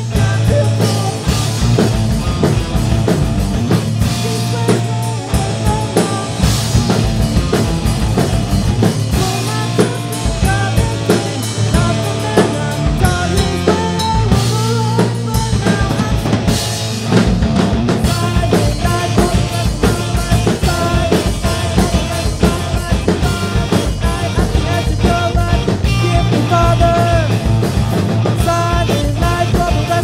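Live rock band playing, electric guitar and bass over a drum kit beat.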